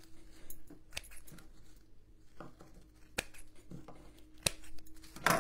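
Scissors snipping raffia strands: a few sharp snips spaced about a second apart, with a brief louder noise near the end.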